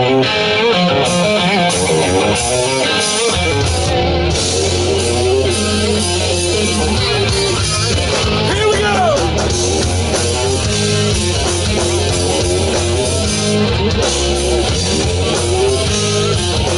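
Rock band playing live: distorted electric guitars over bass guitar and a drum kit, with the low bass end filling in about three seconds in.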